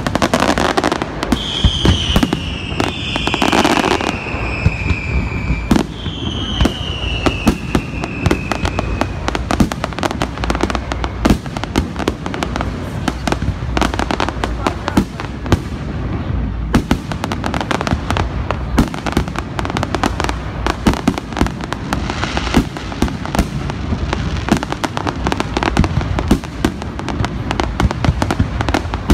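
Large aerial fireworks display: shells bursting in rapid, dense succession with continuous crackling. Several long, slowly falling whistles sound during the first nine seconds or so.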